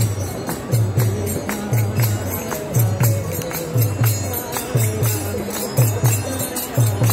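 Music with a steady bass beat, jingling tambourine-like percussion and a melody over it.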